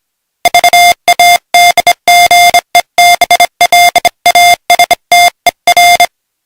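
Morse code: a single steady, buzzy beep switched on and off in short dots and longer dashes, starting about half a second in and stopping about six seconds in. It spells out a swear word.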